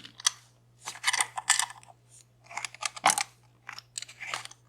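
Lock-picking tools clicking and scraping in a DOM Plura lock cylinder, in short bursts of rapid small metallic clicks about once a second.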